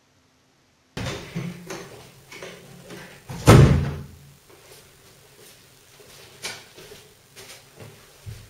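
A door shuts with a single heavy thump about three and a half seconds in, followed by a few lighter knocks and footsteps on a hard floor.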